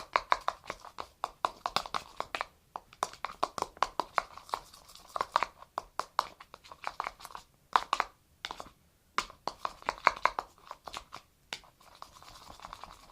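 Glue-and-glycerin slime being stirred in a container: a rapid, irregular run of wet clicks and squelches, with a few short pauses.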